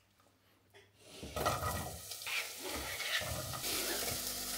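Chopped vegetables frying in a saucepan, a steady sizzle with a wooden spoon stirring and knocking in the pan. The sizzle grows brighter and louder near the end as chopped onion is scraped in off a knife.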